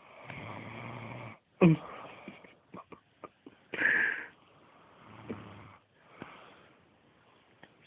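A sleeping person snoring: a long low snore at the start and another about two-thirds through, with a short sharp snort about a second and a half in and a louder wheezy breath near the middle.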